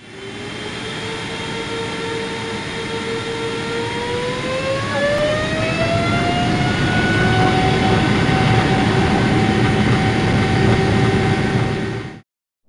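Jet engine spooling up: a steady whine that glides up in pitch partway through and then holds higher, over a rush of noise that grows louder, cut off abruptly near the end.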